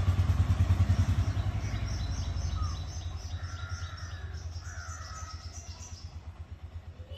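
A motor vehicle engine running with a low, fast, even pulse, fading steadily as it moves away. Birds chirp in a quick repeated series over it for a few seconds in the middle.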